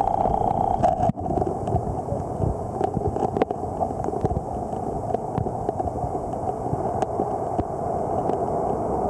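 Muffled underwater sound of a rocky tidepool heard through a submerged camera: a steady churning wash of moving water with scattered sharp clicks.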